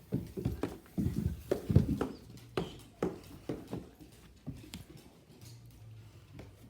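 A run of irregular thumps and knocks, like hurried steps on a hard floor, loudest about two seconds in and dying away after about five seconds.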